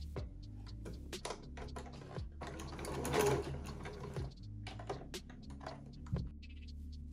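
Janome electric sewing machine stitching a narrow strip of fabric: the motor runs steadily under a string of sharp clicks, and the sound swells for about a second and a half around the middle.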